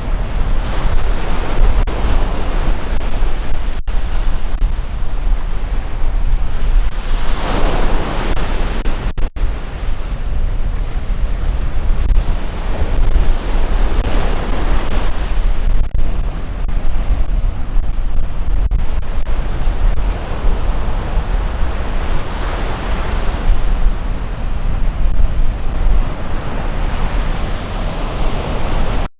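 Sea waves breaking and washing ashore, a continuous surf that swells in slow surges every several seconds. Wind rumbles on the microphone.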